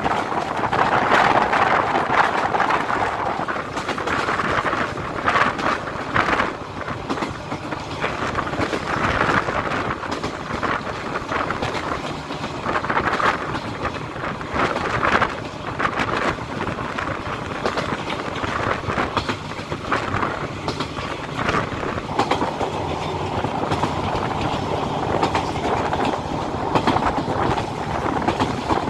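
Passenger train SE6 running at speed, heard from an open coach window: steel wheels clattering over the rail joints over a steady rushing noise.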